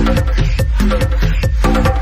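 Electronic dance music from a 140/techno DJ set: a steady four-on-the-floor kick drum about twice a second over a continuous deep bass line, with sustained synth tones above.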